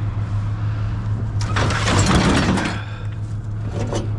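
Scrap being shifted about: a clattering, scraping crash with metallic clinks lasting about a second, starting about a second and a half in, then a shorter clatter near the end, over a steady low hum.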